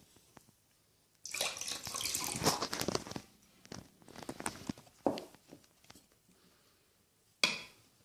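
Borax solution poured into a bowl of PVA glue mix: a splashing pour lasting about two seconds, followed by scattered drips and small knocks, and one sharp knock near the end.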